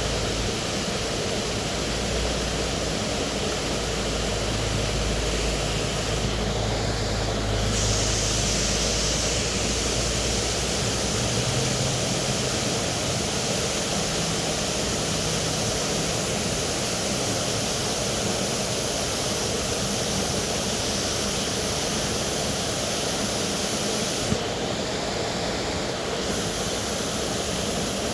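Waterfall rushing in a steady, dense roar of water, with a low rumble underneath for roughly the first ten seconds.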